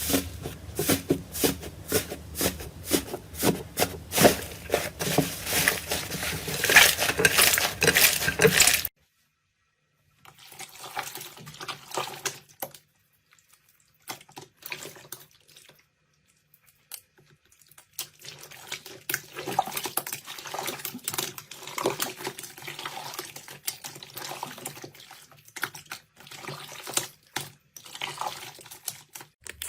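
Slime being squished and worked by hand, giving a dense run of wet, sticky clicks and pops. The sound cuts off abruptly about nine seconds in. It resumes more quietly and sparsely about a second later.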